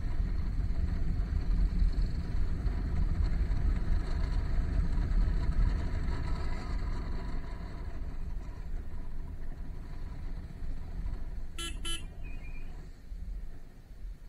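Motorcycle ride: low rumble of wind buffeting and engine noise, easing off near the end as the bike slows. About twelve seconds in, a vehicle horn toots twice in quick succession.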